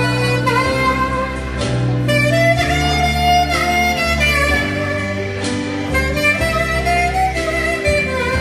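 Saxophone playing a melody over a backing track with a steady bass line.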